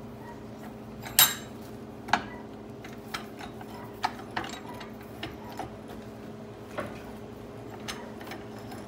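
Metal clinks and knocks from a lever arm shock absorber being handled and turned over on the bench: two sharper knocks about one and two seconds in, then a string of lighter taps. A steady low hum runs underneath.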